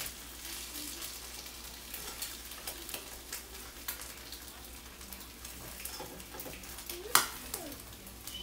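Eggs sizzling and crackling in a frying pan while a metal utensil scrapes and works in the pan to flip them, with one sharp clank about seven seconds in, the loudest sound.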